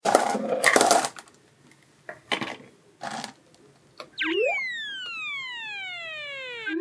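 Cartoon sound effects: a few short noisy bursts, the loudest in the first second, then a long whistle falling steadily in pitch for about two and a half seconds and ending in a quick upward chirp.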